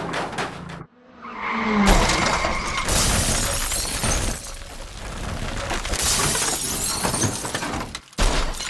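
Car crash sound effect: a car slams into a building, followed by a long run of glass shattering and debris breaking, with louder surges partway through and another burst near the end.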